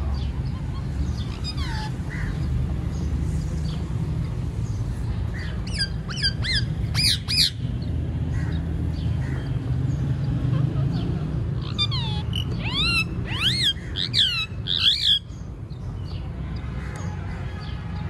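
Rose-ringed parakeets giving harsh, sweeping squawks in two clusters, about six seconds in and again from about twelve to fifteen seconds, over a steady low background rumble.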